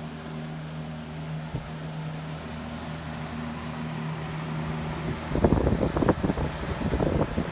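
Vintage 14-inch Phoenix box fan's two-speed General Electric motor running on high: a steady, quiet hum with no vibration. About five seconds in, a loud irregular rumbling covers the hum for the last two seconds.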